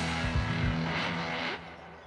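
Background music with a steady beat and held tones, fading down about one and a half seconds in.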